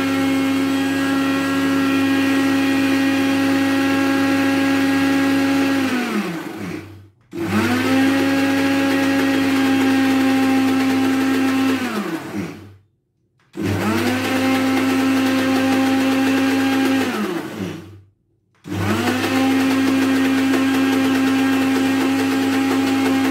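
Countertop blender running as it mixes egg, sugar and vanilla. It is switched off and on again three times, and each time the motor's hum falls in pitch as it spins down before it starts up again.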